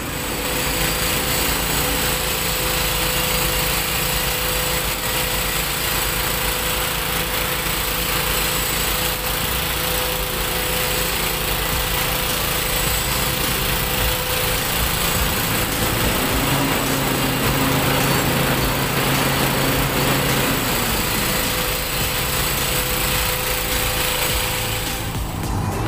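Steady machinery noise in a heavy-equipment workshop, with an engine or motor running. About two-thirds of the way through, a second motor hum comes in, then winds down and stops.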